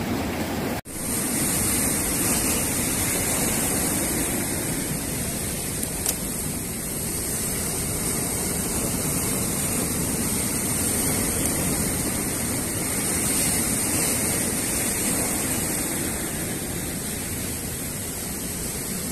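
Ocean surf breaking over boulders and a pebble shore: a steady rushing of water, after a brief drop-out about a second in.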